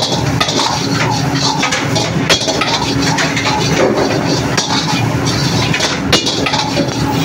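Steel ladle clinking and scraping against an iron wok as fried rice is stirred and tossed, many quick knocks in a row, over the steady rush of a high-flame gas burner.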